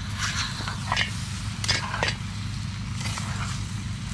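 A few sharp clinks and clatters of cooking utensils against a pot or pan, over a steady low hum.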